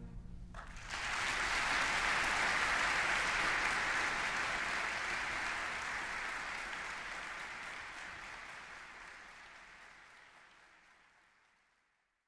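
Audience applause, starting about a second in, then fading gradually away to silence.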